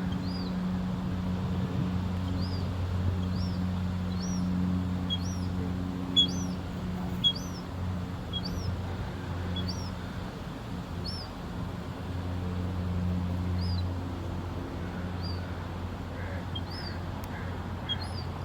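A bird calling over and over with short, high, arched chirps, roughly one a second, over a steady low hum.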